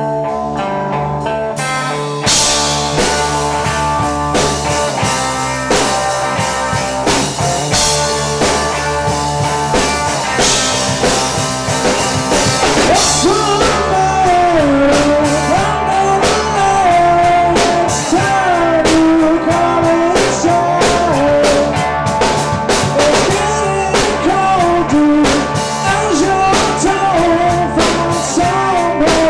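Live rock band playing electric guitar, bass guitar and drum kit: guitar chords ring alone at first, and the drums and full band come in about two seconds in. Lead vocals join about halfway through.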